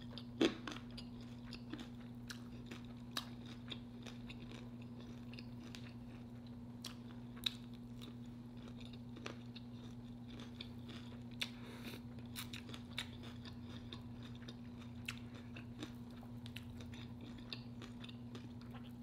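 A person chewing and crunching food up close, with scattered short crunches and mouth clicks, over a steady low hum.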